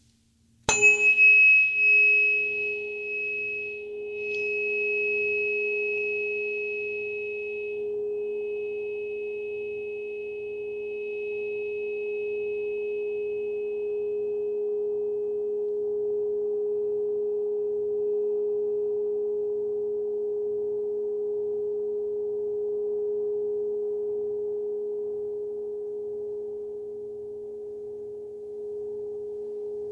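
A Solfeggio-set tuning fork struck once, with a sharp metallic clink about a second in. It then rings on with a steady pure tone. A brighter, higher overtone fades away over the first fifteen seconds or so, leaving the plain tone.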